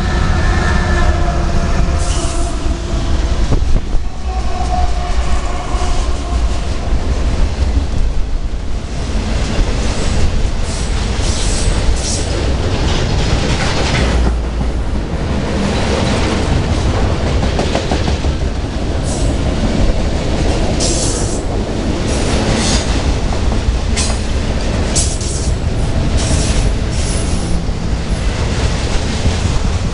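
CSX freight train passing close. The diesel locomotives' engines drone at first, then a long string of autorack cars rumbles by with wheels clacking over the rail joints and brief high-pitched wheel squeals now and then.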